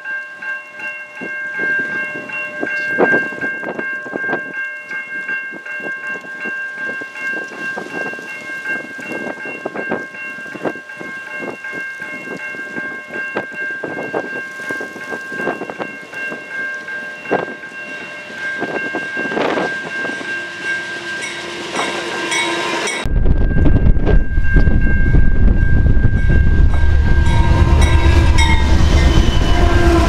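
Freight train led by GE diesel locomotives approaching, heard under gusts of wind on the microphone, with a steady high tone over it. About 23 seconds in, the sound jumps to a loud, close pass: the locomotives rumbling by with wheels running on the rails, and wind buffeting the microphone.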